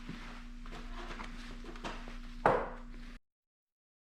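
Low workshop handling noise over a steady hum, with one sharp snap about two and a half seconds in, fitting wire cutters clipping the end off a TIG filler rod; the sound cuts out abruptly soon after.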